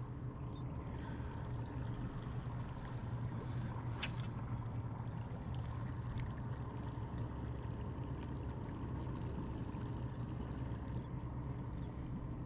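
Steady low hum of a motor aboard a small fishing boat, with water running or trickling over it. A single sharp click about four seconds in.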